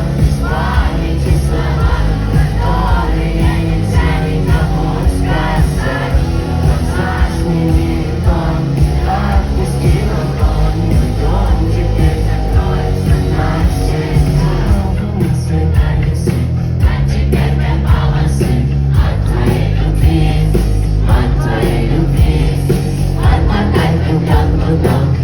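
Russian rock band playing a song live at full volume, with singing over the band and a crowd heard along with it.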